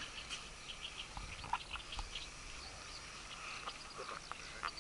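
Quiet riverbank ambience with faint, scattered short chirps from birds.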